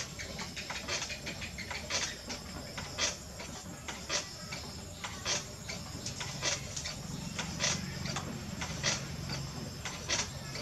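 Potter's wheel spinning while wet, clay-covered hands shape the neck of a clay jar: a steady low hum under sharp ticks that come about once a second.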